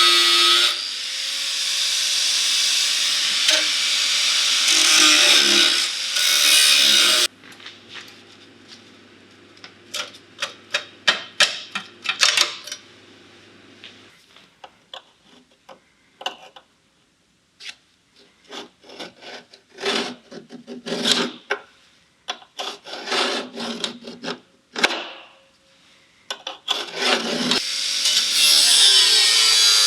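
A power tool, such as an angle grinder or sander, running on sheet metal, its pitch wavering. It cuts off suddenly about seven seconds in. After that comes a stretch of short, sharp knocks and crackling bursts over a faint hum, and the tool starts up again near the end.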